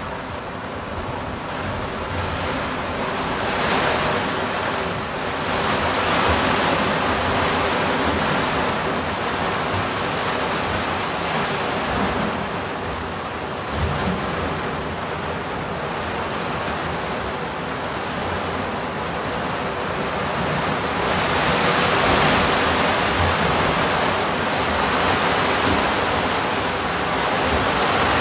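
Heavy tropical downpour pelting the boat's cabin and the lake surface, heard from inside the cabin as a loud, steady hiss that surges louder in waves several times as the squall front passes over.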